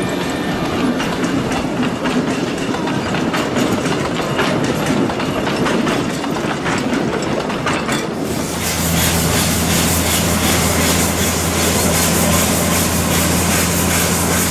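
Open coaches of a narrow-gauge train rolling past with a steady clickety-clack of wheels over rail joints. About eight seconds in, the sound changes abruptly to a steady low engine hum under a loud hiss of steam venting from a narrow-gauge steam locomotive.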